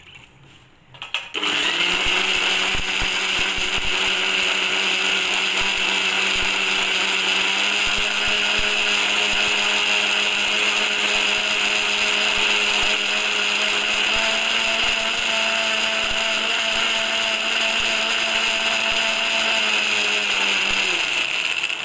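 Preethi mixer grinder running steadily, grinding coconut, green chillies and garlic with a little water into a thick chutney. It starts about a second in and stops just before the end, and its hum steps up slightly in pitch twice partway through.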